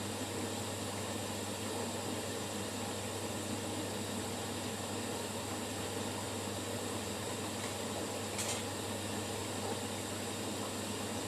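Two washing machines, a Hoover Dynamic Next and a Beko Pro AquaTech, running together in their final rinse: a steady hum and hiss of the drums turning through water. A brief higher hiss comes about eight seconds in.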